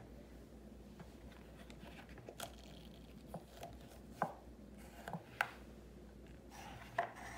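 Faint handling of a silicone mold as hardened chocolate shells are popped out of it: a handful of sharp, scattered clicks and taps.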